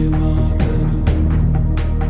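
Background music with a steady beat and sustained low tones.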